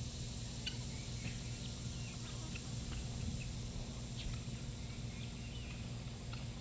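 Small birds chirping in short, faint calls scattered through, over a steady high insect drone and a steady low rumble.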